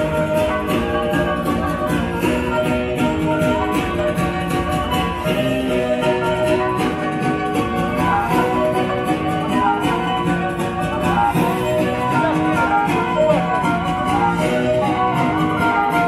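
Black Sea kemençe playing a fast horon dance tune, amplified, over a steady beat.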